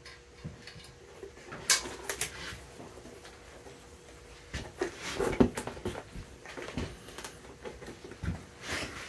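Hand-welting a boot: a stitching awl punched through the leather welt and waxed thread drawn tight through the holes, in irregular short scrapes and clicks, loudest about halfway through.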